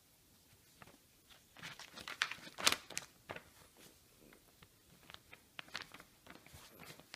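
Small dog biting and tearing a glossy paper perfume-sample card: irregular paper crackling and ripping, busiest and loudest about two to three seconds in, then scattered crinkles.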